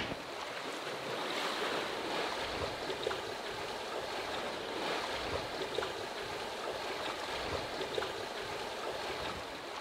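Sea water rushing and splashing along the hull of a sailing yacht under way, a steady hiss with small splashes scattered through it.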